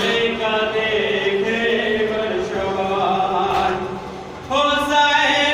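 Men's voices chanting a nauha, a Shia mourning lament, in long held notes. The chant dips briefly about four seconds in, then comes back louder.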